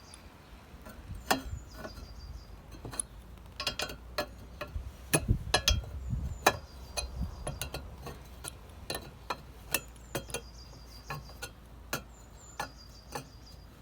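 Irregular metallic clinks, taps and knocks of tools and parts as a new front wheel is fitted to a moped, the louder knocks bunched about halfway through. A short, high chirping call recurs several times in the background.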